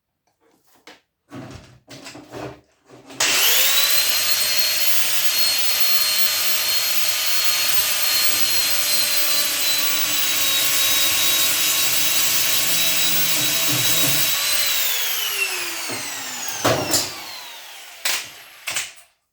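Angle grinder with a nearly worn-out disc starting up about three seconds in and running at a steady high whine for about eleven seconds while cutting into a brass fitting, then winding down with a falling pitch. A few knocks near the end.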